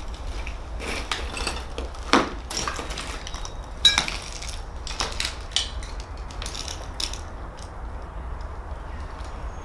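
Footsteps crunching on scattered debris, with irregular crunches and clinks and two sharper knocks about two and four seconds in.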